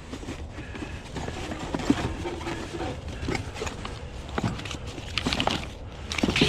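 Scattered knocks and rattles of items being handled while someone rummages through a box of curbside junk, over a steady low rumble.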